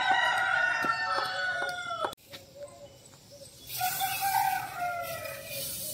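A rooster crowing: a long call that slowly falls in pitch and breaks off sharply about two seconds in. A second crow starts a little past halfway, together with the hiss of an insecticide sprayer.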